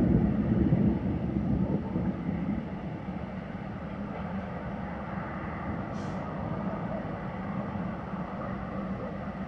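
Thunder rumbling, loudest at the start and dying away over about three seconds into a steady low background hum.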